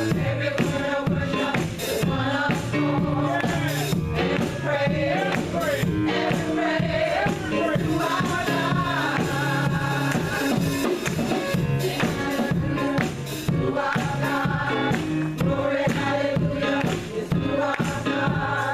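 Women's choir singing a gospel praise song with a steady beat of tambourine and drums.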